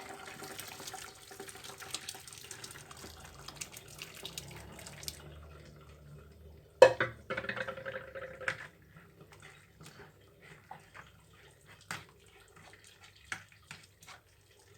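Hot infusion of boiled lemon and orange peel being poured from a pot through a fine mesh strainer: a steady trickle of liquid for about five seconds, tailing off. About seven seconds in comes one sharp loud knock, followed by scattered drips and light clinks.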